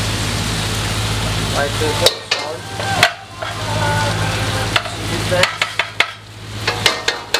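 Food sizzling in a pan over a commercial gas range, a steady hiss with a low hum underneath that drops away about five and a half seconds in. Metal spoons clank several times against steel pans and spice containers as the cook stirs and scoops masala.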